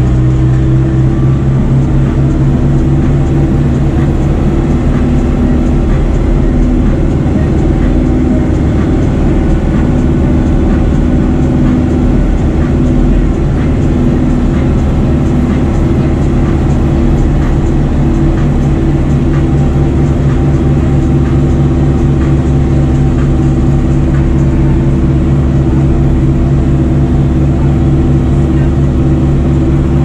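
Fendt tractor's diesel engine running at a steady speed under way on the road, heard from inside the cab as an even, low drone.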